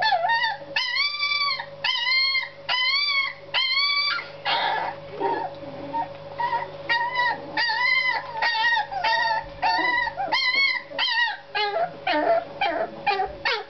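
Alaskan malamute puppies crying: a steady string of short, high-pitched, arching whines and yelps, about two a second.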